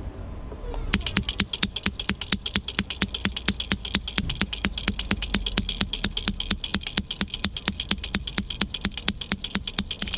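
Electric hammer breaker on a radio-controlled model excavator pounding concrete: a fast, even train of sharp clicking blows, about five or six a second, starting about a second in and stopping just before the end, over a low steady rumble.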